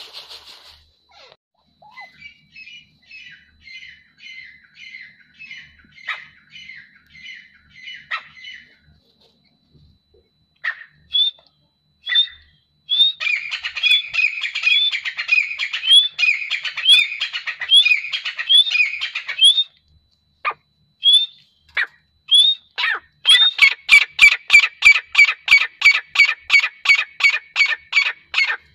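Grey francolin calling. It starts with a run of soft, short notes at about two a second, gives louder rising notes from about ten seconds in, and builds to a fast, loud series of about four calls a second near the end.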